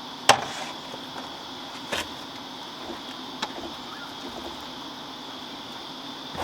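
Outdoor background with a steady high-pitched insect drone, broken by a few sharp clicks or knocks, the loudest just after the start and two more about two and three and a half seconds in.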